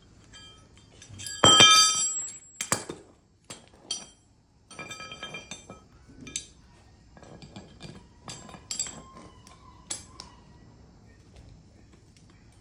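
Metal tools and parts clinking and knocking during work on a blower's bearing, with one loud ringing metal clank about a second and a half in, followed by smaller scattered clinks and taps.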